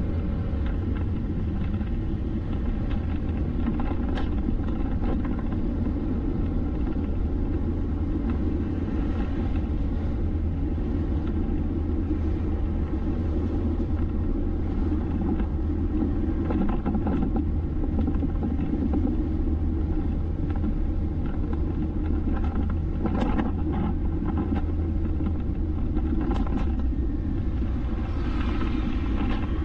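Steady road and engine rumble of a vehicle driving along a city road, with a few brief swells as other traffic passes.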